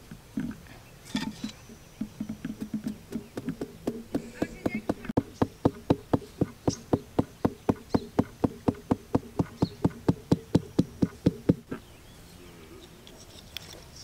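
Rapid, even tapping of a metal hand tool driving a bamboo stake into sandy ground, about four to five strikes a second, growing louder about halfway through and stopping near the end, with a steady low buzz under it.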